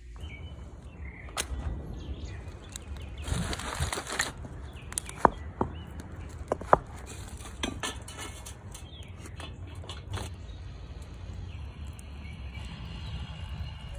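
Split firewood knocking and clattering as it is piled onto a burning fire in a stone fire pit, with a crunching stretch and then several sharp cracks a few seconds in, over a low steady rumble.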